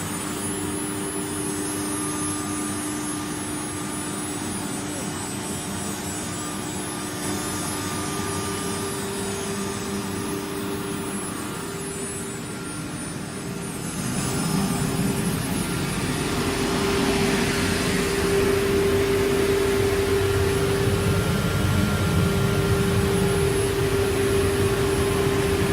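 CNC router spindle running with a steady high whine, growing louder and noisier about fourteen seconds in.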